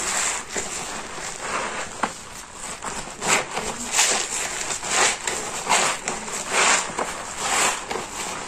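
A porous car sponge soaked with thick soap suds being squeezed by hand, giving wet, foamy squelches. The squeezes come about once a second from roughly three seconds in.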